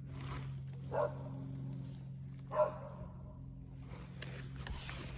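A dog barks twice, briefly, over a steady low hum.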